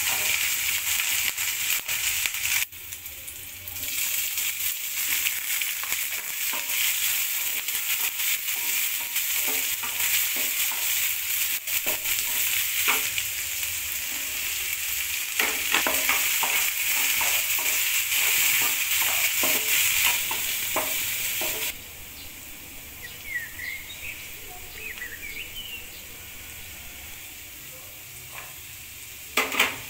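Chopped garlic and green onion frying in hot oil in a nonstick pan: a steady sizzle, with a wooden spatula scraping and tapping as it stirs. About two-thirds through, the sizzle drops sharply and becomes much quieter.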